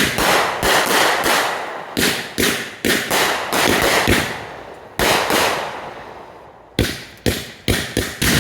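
Fireworks going off in rapid succession: a string of sharp bangs, each trailing off into crackle. A lull comes past the middle, then a quicker volley of bangs near the end.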